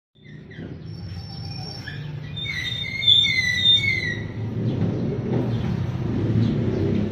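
Birds chirping in a quick run of short sliding notes a few seconds in, over a steady low outdoor rumble that grows louder.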